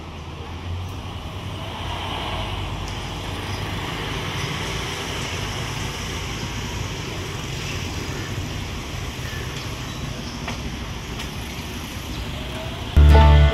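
Street traffic: a city bus and cars running past, with a steady low engine rumble and road noise. Loud music starts suddenly just before the end.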